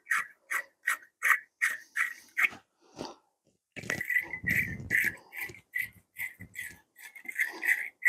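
Hand wire brush scrubbing a battery cable terminal clamp clean, in quick back-and-forth scraping strokes about three a second. The strokes pause for about a second a little before the middle, then resume.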